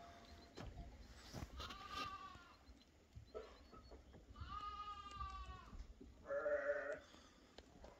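Sheep bleating: three calls, the first about two seconds in, a longer one around the middle, and a lower, louder one near the end.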